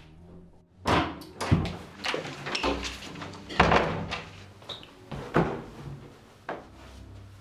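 A wooden door slammed shut about a second in, followed by an irregular series of loud thumps and knocks.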